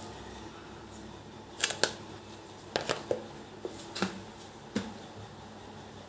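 Sharp clicks and light knocks, about seven in uneven succession starting about one and a half seconds in, over a faint steady hum.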